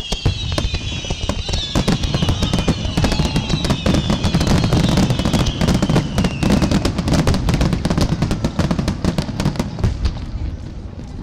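Fireworks finale barrage: a rapid, continuous string of bangs and crackles over a steady low rumble. Several high whistles slide slowly downward in pitch through the first seven seconds or so. The barrage thins out near the end.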